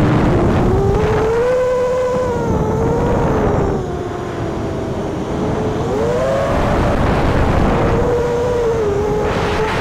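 A quadcopter's Emax 2207 2400 Kv brushless motors and propellers whining in flight, heard from the camera on board, over a rush of wind noise. The pitch rises and falls with the throttle, easing off about four seconds in and climbing again around six seconds in.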